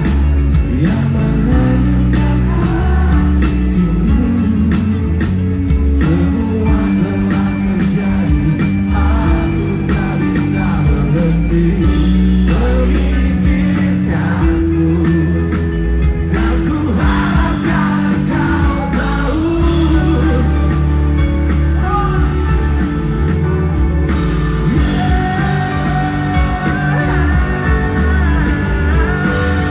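A live rock band playing loudly, with electric guitar, heavy bass and singing.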